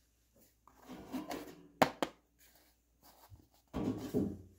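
A cardboard baking-soda box being handled and scraped against a metal mesh surface: irregular rubbing and scraping, with two sharp taps a little under two seconds in and a second burst of scraping near the end.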